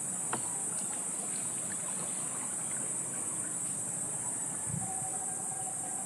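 Steady high-pitched chorus of insects, with a few faint clicks and a soft low thump a little before the end.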